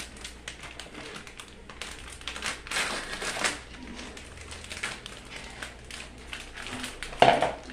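Plastic food packaging crinkling and rustling in the hands as a bag of seasoned chicken is opened and the pieces are tipped out, with a louder crackle near the end.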